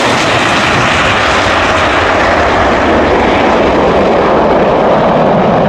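Loud, steady airplane engine noise: an even rushing sound with no clear pitch that holds at one level.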